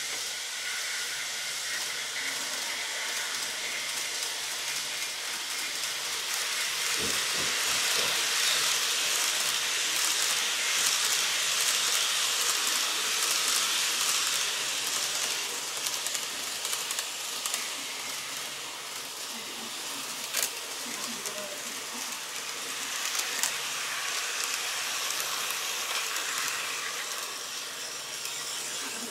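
N gauge model electric train running along the track, a steady hissing rattle of wheels and motor that swells as the train passes close by and then fades as it draws away. One sharp click about two-thirds of the way through.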